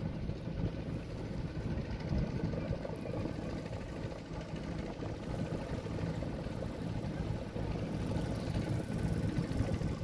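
Small motorboat engine running steadily out on the river, a steady drone over an uneven low rumble.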